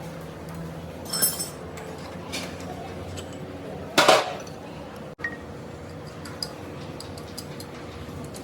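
Metal parts clinking and knocking as they are handled: one ringing clink about a second in, a louder short clatter around four seconds in, then a sharp click and a few small ticks.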